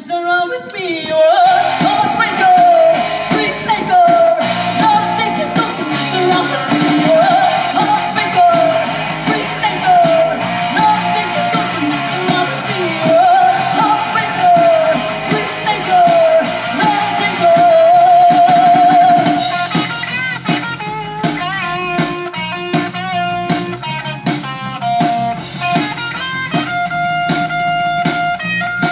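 A rock song with singing over guitar and drums; the vocal melody, with vibrato on its held notes, fills the first two-thirds, then it gives way to a guitar passage with steady held notes.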